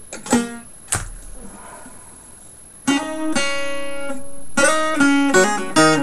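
Acoustic guitar being strummed: two short single strums, then from about three seconds in, full chords strummed and left ringing.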